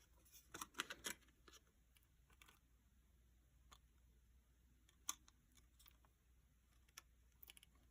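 Near silence, with a few faint clicks and taps of small items and packaging being handled: a small cluster in the first second, then single sharper clicks about five and seven seconds in.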